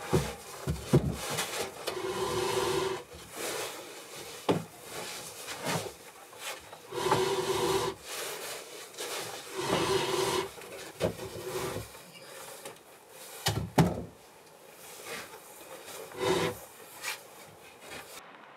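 A long wooden board sliding and scraping over the top log of a log wall: wood rubbing on wood in several drawn-out squeaks of about a second each, with sharp knocks in between as it bumps against the logs.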